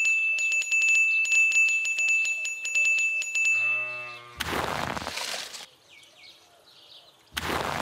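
A sparkly chime sound effect: a steady high ringing tone over rapid tinkling clicks, ending about 3.5 s in with a quick falling sweep of tones. Two short noisy swishes follow, about 4.5 s and 7.5 s in, with faint animal bleats in the background between them.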